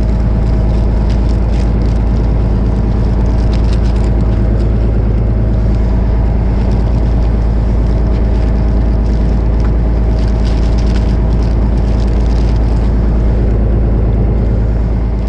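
Fishing boat's engine running steadily underway, a loud low drone, with light rustling and clicks as a plastic bag and a mesh keep net are handled.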